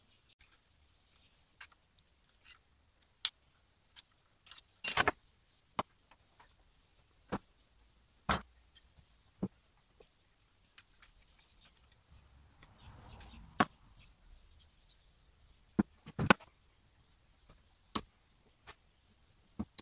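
Scattered sharp clicks and knocks as small steel parts and hand tools are handled and set down on a metal workbench while an old wooden spirit level is taken apart. A short soft scraping comes about two-thirds of the way through.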